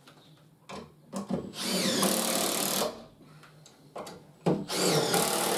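Cordless drill-driver running in two bursts of about a second and a half each, driving screws into timber, its motor pitch rising and dipping as it works.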